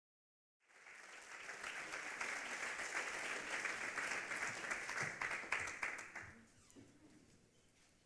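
Audience applauding, starting suddenly about half a second in and dying away about six seconds in.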